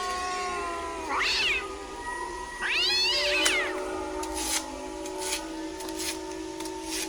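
A cat meowing twice, two drawn-out calls that rise and fall in pitch, over steady held tones.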